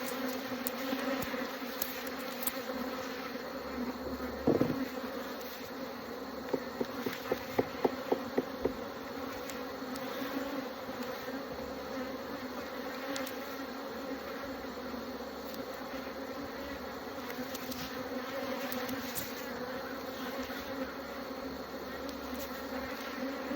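Honeybees of a queenless colony buzzing steadily in the opened hive, a continuous hum. About four and a half seconds in there is a single knock, and a little later a quick run of about eight sharp clicks.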